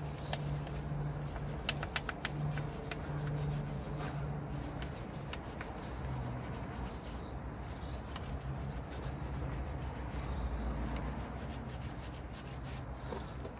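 Scrubbing of a wheel brush inside an alloy wheel's barrel, with a few clicks in the first couple of seconds, over a low steady hum. Small birds chirp briefly at the start and again about seven seconds in.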